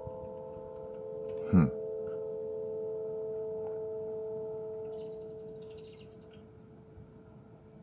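A steady, chord-like drone of several held tones coming from the sky, the mysterious noise called 'sky trumpets', fading away near the end. A single loud thump cuts in about a second and a half in, and a bird chirps briefly about five seconds in.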